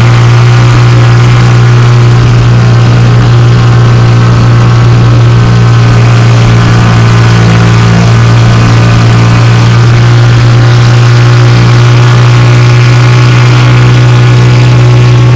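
Outboard motor of a small fishing boat running under way at a steady speed: a loud, steady low drone at one unchanging pitch.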